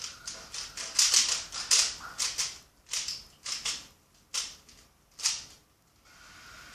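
Plastic clicks and clacks of a Rubik's Cube's layers being turned in quick, irregular runs during a blindfolded solve. The turning stops a little after five seconds in.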